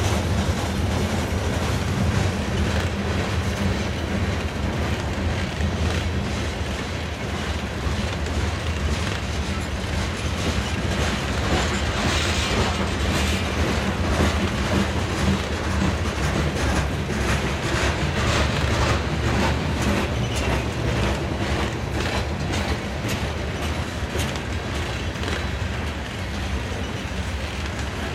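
Loaded covered hopper cars of a freight train rolling past: a steady rumble of steel wheels on rail, with rapid clickety-clack as the wheelsets pass over the rail joints.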